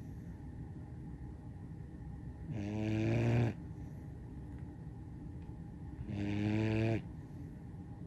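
German Shorthaired Pointer puppy snoring in its sleep: two drawn-out, pitched snores about three and a half seconds apart. Each lasts about a second, grows louder and then breaks off sharply.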